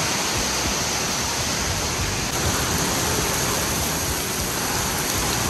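Heavy rain pouring down on a paved street: a loud, steady downpour.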